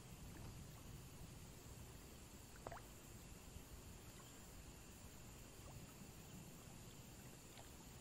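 Near silence: a faint steady background hiss with a thin high whine, broken by a few soft, brief ticks, the clearest about two and a half seconds in.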